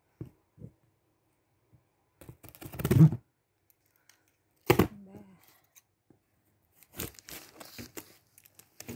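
Packing tape and cardboard of a shipping carton being cut with scissors and torn open by hand: a loud rip about three seconds in, another sharp tear near five seconds, then crackly crinkling of the tape toward the end.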